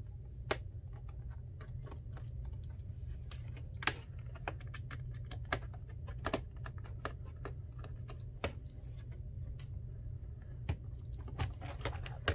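Irregular small clicks and taps from hands working on a laptop's screen panel and its plastic and screw parts, over a steady low hum.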